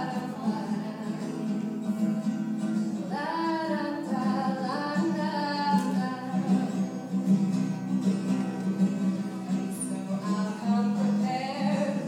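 A woman singing live over her own strummed acoustic guitar, heard through an iPhone's microphone from the audience.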